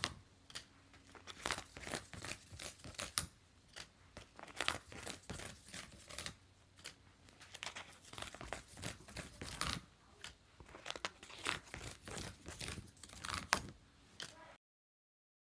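Paper being torn and crinkled by hand in short, irregular crackly bursts, as in craft work; the sound cuts off abruptly near the end.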